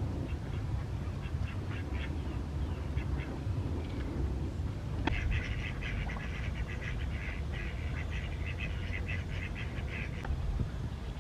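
Domestic ducks quacking: a few scattered calls at first, then a fast, dense run of quacks from about five seconds in that stops near the end, over a steady low rumble.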